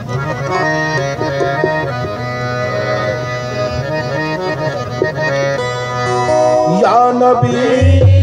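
Harmonium playing a qawwali melody in steady held reed notes. About seven seconds in, a male voice comes in with a rising sung line and a low sustained tone joins.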